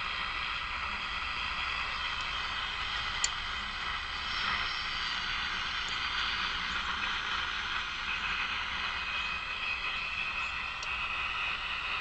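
Detrola tube radio's speaker giving a steady hiss of static, with faint steady whistle tones and one sharp click about three seconds in.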